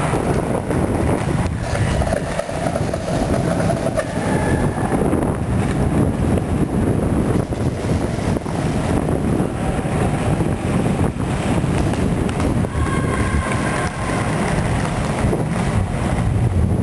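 Inline skate wheels rolling over a concrete parking-garage deck: a steady, loud rumble with wind on the microphone.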